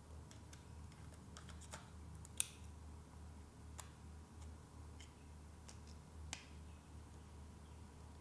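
Faint, scattered small plastic clicks and taps from the Sony ZV-1's battery and memory-card compartment as an NP-BX1 battery is pushed in and the compartment is handled. The sharpest click comes about two and a half seconds in.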